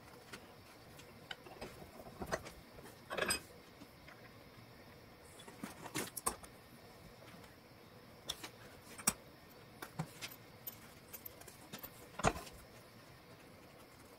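Scattered metal clinks and knocks of steel hydraulic adapter fittings and an adjustable wrench against a cast-iron bench vise, as a fitting is tightened and handled. The louder knocks come about three, six, nine and twelve seconds in.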